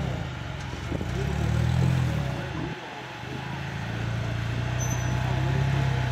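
Rock-crawler buggy's engine revving up and back down as it works up a rock ledge, dropping off briefly about three seconds in, then running steadily.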